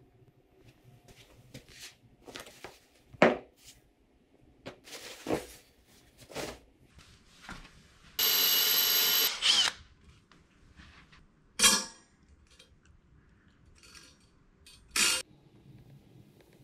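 Knocks and clicks of a clamp being fitted to a metal pole, then a small electric motor running steadily for about a second and a half, with two short bursts of it later on.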